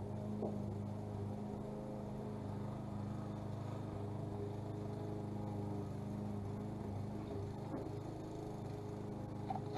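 Small lawn mower engine running steadily at a distance, a constant drone.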